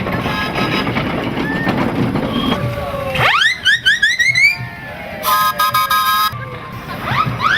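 Whistling fireworks: a volley of overlapping rising whistles about three seconds in and again near the end, with a steady pitched tone lasting about a second between them.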